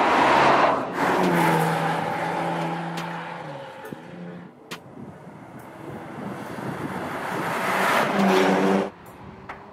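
Porsche Macan Turbo's 2.9-litre twin-turbo V6 driving past close by. It is loudest in the first second and again near the end, with a steady engine note in between. The sound cuts off suddenly shortly before the end.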